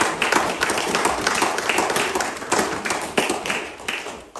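Audience clapping, the applause fading away near the end.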